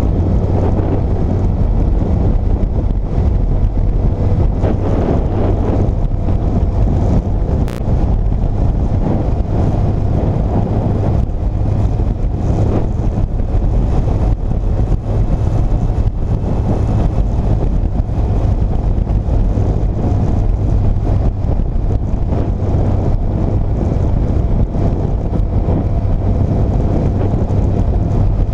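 Wind rushing over the microphone on a moving motorcycle, over the steady running of a 2006 Yamaha FJR1300's inline-four engine. A single brief click about eight seconds in.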